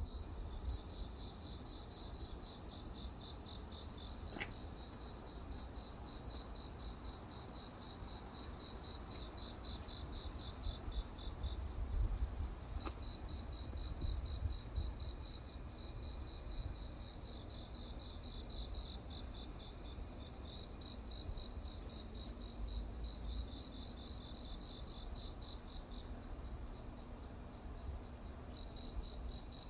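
Crickets chirping steadily in fast, even pulses, with a low rumble underneath and two faint clicks.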